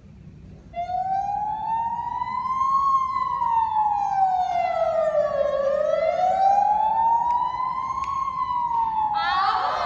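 Recorded siren sound effect played over loudspeakers, a slow wail rising and falling in pitch about every two and a half seconds. Near the end a busier, higher sound joins it.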